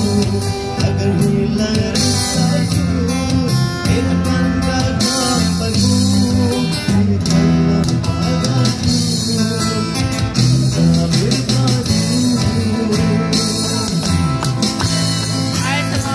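Live street band playing a song through an amplified PA: guitar leading over keyboard, bass and drums, with no clear lead vocal for most of the stretch.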